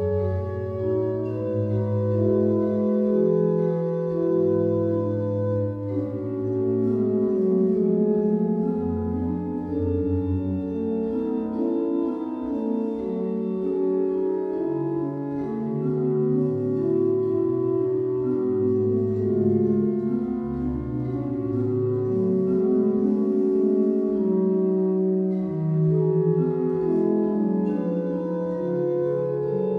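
Sampled pipe organ (Hauptwerk virtual organ with the Strassburg, Austria sample set) playing a slow, legato Romantic chorale prelude: sustained chords with the chorale melody in the top voice and a slowly moving bass, deep pedal notes sounding in the first third and again later on.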